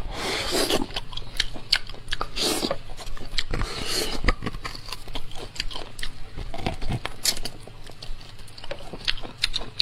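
Close-up eating of bone marrow: chewing and biting with many wet mouth clicks and short noisy bursts scattered through.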